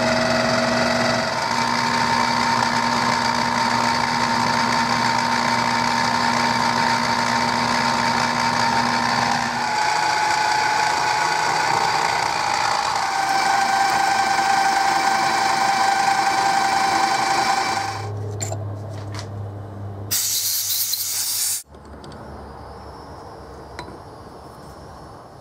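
Small milling machine running with a drill bit boring a 0.204-inch cross hole through the knurled steel nut of a machinist's jack: a steady whine whose pitch shifts a few times. The cutting stops about 18 seconds in, followed by a low hum and a brief loud rushing noise just after 20 seconds.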